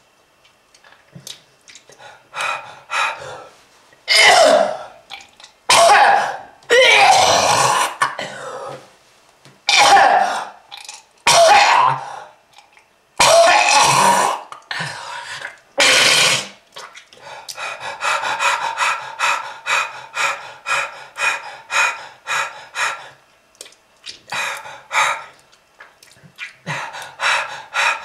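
A person coughing hard in a smoker's cough. First come long, harsh hacking fits, then from about the middle a long run of short, rapid coughs, about two a second.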